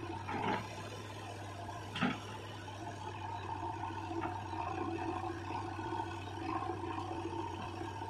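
JCB 3DX backhoe loader's diesel engine running under hydraulic load as the backhoe arm swings back from the tractor trolley, its note growing stronger from about three seconds in. Two short knocks stand out, about half a second and two seconds in.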